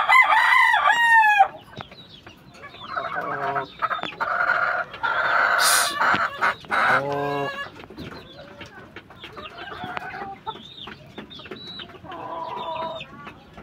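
Gamefowl rooster crowing: a loud call right at the start, then a longer crow from about three to seven seconds in that ends on a falling note, and a quieter call near the end. Short high chirps run between the calls.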